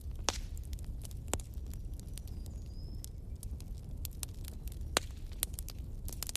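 Wood fire crackling in a fireplace: a steady scatter of small snaps and ticks over a low rumble, with a few louder pops, two near the start and one about five seconds in.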